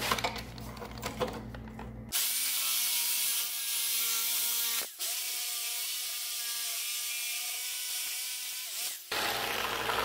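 Corded reciprocating saw (Sawzall) running and cutting metal. It starts about two seconds in, stops for an instant about halfway through, then runs again and cuts off a second before the end.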